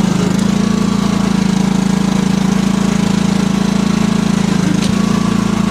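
Riding lawn mower engine running steadily while the mower is driven slowly forward onto the lift's wheel brackets.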